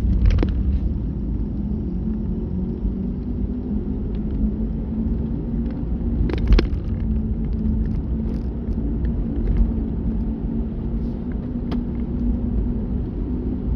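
Car driving, heard from inside the cabin: a steady low road and engine rumble, with a few short sharp knocks, the loudest about half a second in and about six and a half seconds in.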